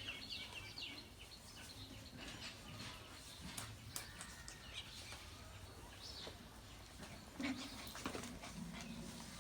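Faint, scattered high chirps, some falling in pitch, from an animal, with a few soft knocks about seven and eight seconds in.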